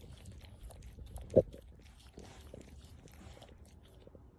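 French bulldog making small wet mouth and lip-smacking clicks, with one short, loud grunt about a second and a half in.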